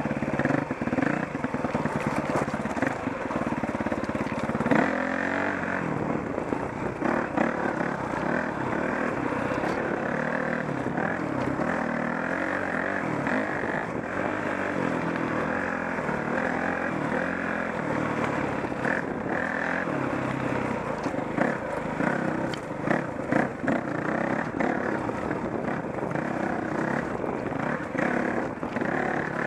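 Dirt bike engine running on a rocky single-track trail, its revs rising and falling constantly, with scattered sharp knocks and rattles as the bike goes over rocks and roots.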